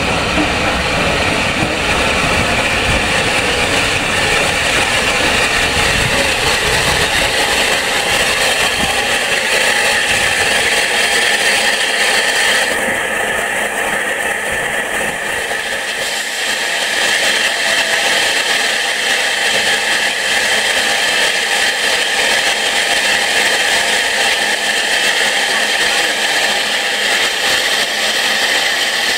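WD Austerity 2-8-0 steam locomotive No. 90733 pulling away and passing close: a loud, steady rush of escaping steam and running noise with no distinct exhaust beats, its deep rumble dropping away after about eight seconds.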